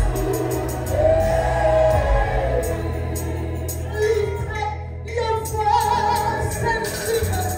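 A woman sings a worship song into a handheld microphone over music accompaniment with long-held low bass notes.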